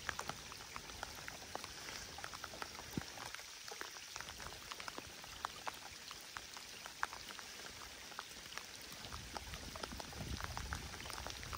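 Steady rain falling on water: a soft hiss studded with many small, separate drop ticks, with a faint low rumble swelling near the end.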